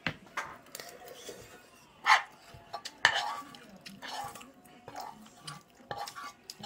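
A metal spoon scraping and clinking against a frying pan while scooping fried rice out of it, several short scrapes and knocks with two sharp clinks about two and three seconds in.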